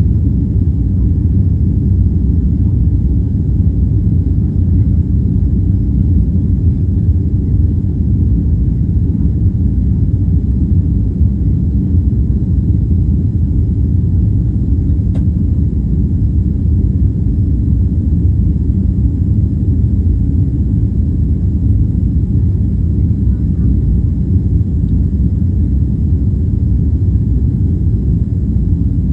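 Steady low rumble of an airliner's jet engines and rushing air, heard inside the passenger cabin.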